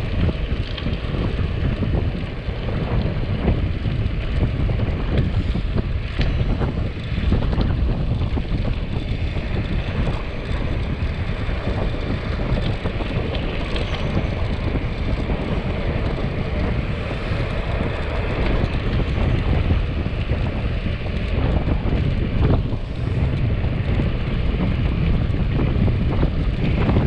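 Steady wind rumble buffeting the camera microphone as a road bicycle descends at about 35 km/h, with a few faint knocks.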